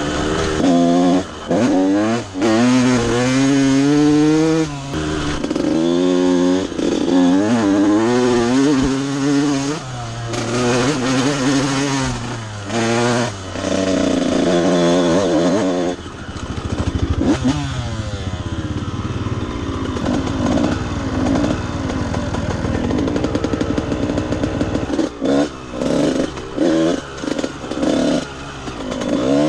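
Honda CR125 dirt bike's 125cc two-stroke single-cylinder engine being ridden, revving up and down over and over as the throttle is opened and the gears are shifted. It runs rougher and lower for a while after the middle, then comes in short on-off throttle bursts near the end.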